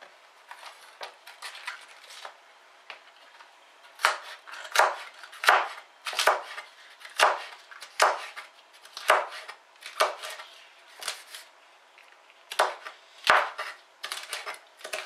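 Kitchen knife chopping cabbage on a plastic cutting board. Light taps for the first few seconds, then firm cuts about once or twice a second, with a quick run of cuts near the end.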